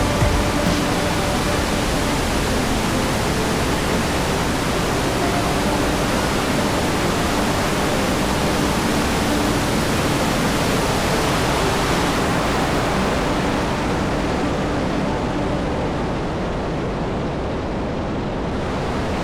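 Waterfall rushing: a loud, steady wash of falling water, the top of the hiss softening slightly about two-thirds of the way through.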